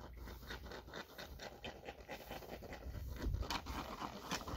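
Dry, ripe wheat stalks rustling and crackling in quick, irregular strokes as someone pushes through the standing wheat, with a low rumble that swells about three seconds in.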